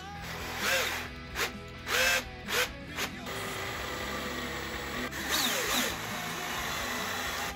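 Bosch cordless drill spinning metal bridge posts into a rosewood archtop bridge foot: several short trigger pulses, the motor whine rising with each, then a longer steady run. Background music runs underneath.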